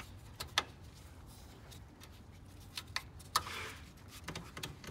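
Handling noise: a few sharp clicks and taps from a T-handle Allen wrench and the intake's bracket being worked by gloved hands, the loudest about three and a half seconds in, followed by a brief rustle.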